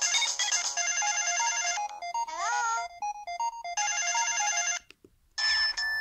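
Samsung SGH-T400 flip phone's built-in polyphonic ringtone 'Cool 2' playing through its speaker: a bright synthesized melody with a repeating phrase that includes a quick upward-sliding note. It stops a little before five seconds in, and after about half a second of quiet the next preset ringtone, 'Bell 1', begins.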